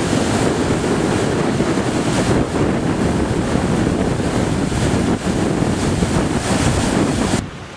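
Sea surf breaking and washing over a rocky shore, with wind buffeting the microphone. The sound drops off abruptly near the end.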